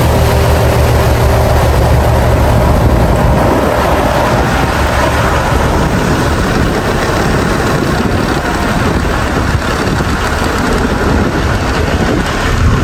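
Engine of a homemade fast boat running steadily at speed, heard from on board together with water spray rushing along the hull.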